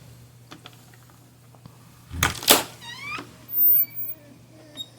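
Porcupine making its soft 'mooping' vocalisation: a quick run of short rising squeaks, then a thin wavering whine, preceded by two sharp knocks.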